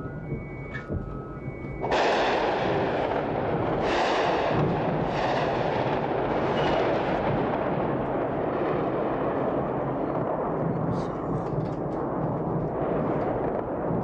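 Aerial bombardment of a city at night: a loud, continuous rumble of explosions and gunfire starts suddenly about two seconds in and keeps going, with repeated heavier strikes. Before it comes an intermittent electronic beeping at two pitches.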